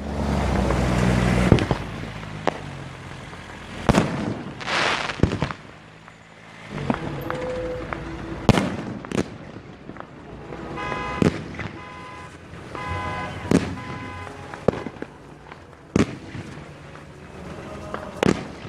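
Aerial fireworks shells bursting, a sharp boom every second or two, about seven in all. A buzzy pitched sound also plays for about three seconds in the middle.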